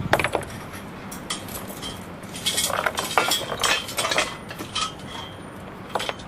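Metal parts of a Superchute SC500 hoist clinking and knocking as locking pins are pulled and the pinned pieces are released and handled. The clinks come irregularly, with a busy run of them in the middle.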